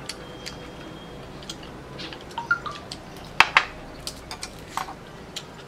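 Chopsticks and tableware clicking and clinking during a meal, in scattered light taps, with two sharper knocks about three and a half seconds in, the loudest of them, as a drinking glass is set back down on the table.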